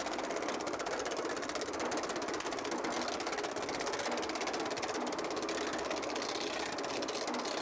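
A homemade steel-frame power hammer running with a 4-inch shrinking die, pounding an aluminum gas-tank panel in a fast, even stream of blows as the panel is fed through, shrinking the metal.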